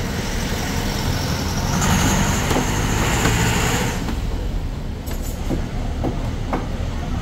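Street traffic running with a steady low rumble, swelling into a louder hissing pass of a vehicle for about two seconds a couple of seconds in, then a few sharp clicks.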